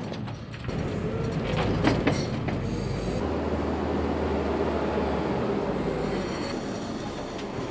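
JCB telehandler running while its muck grab works a load of farmyard manure, a steady machine noise with a few sharp knocks about two seconds in. The sound changes abruptly about three seconds in.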